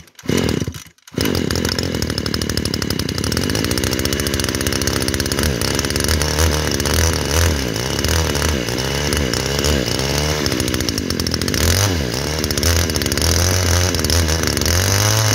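Mitsubishi 21cc two-stroke brush cutter engine being pull-started: a short tug in the first second, then it catches and runs steadily. From about six seconds in, the throttle is opened and closed, so the revs rise and fall repeatedly.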